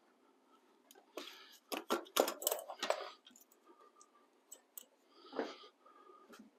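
Clattering and clicking of hard parts and tools being handled, with a burst of clatter about two seconds in and a few single clicks later. These are the sounds of a planer's parts being gathered for reassembly.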